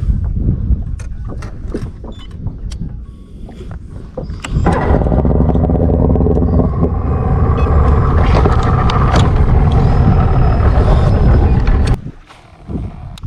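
Bass boat's outboard motor running loud and steady from about four and a half seconds in, then cutting off suddenly near the end. Before it comes in there is a lower rumble with scattered knocks.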